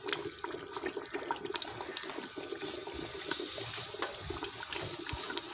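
Mutton kofta curry simmering in an open aluminium pressure-cooker pot, the gravy bubbling with many small pops while the pot is swirled by its handle so the thin gravy sloshes around the raw-mince meatballs.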